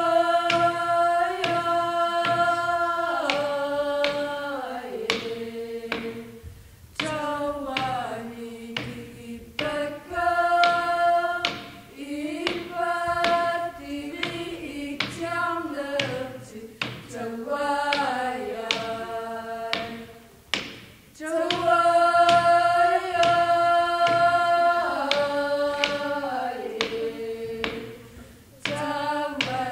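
Group of young female voices singing a melody in unison, long held notes stepping down in phrases. Sharp strikes of a Greenlandic frame drum (qilaat), hit with a wooden stick, cut through the singing at uneven intervals.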